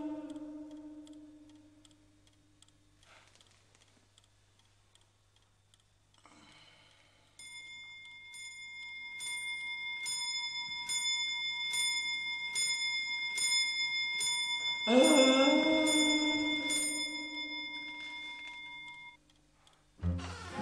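Mantel clock striking, with a bright, ringing bell stroke about every two-thirds of a second; the strokes begin about seven seconds in and stop around the 17th second, the ringing dying away after. An eerie held tone swells and rises near the start and again under the later strokes.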